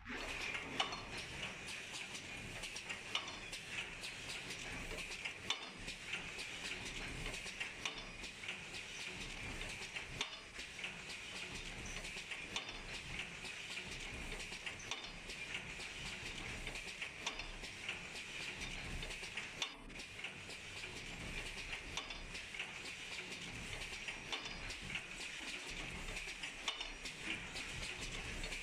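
Double-station paper cup forming machine running, making paper souffle or baking cups: a steady, dense metallic clatter of many small clicks.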